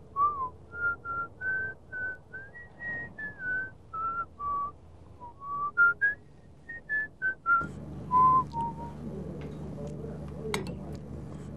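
A man whistling a slow tune in clear single notes. About seven and a half seconds in it gives way to a low steady room hum with a few light clicks.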